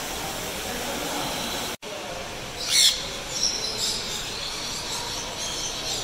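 A nanday conure gives one loud screech about three seconds in, then softer high chirps follow over a steady background hiss.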